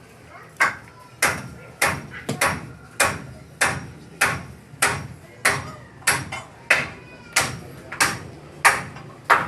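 Steady hammering: sharp strikes with a brief ring, about one and a half a second, some fifteen in all.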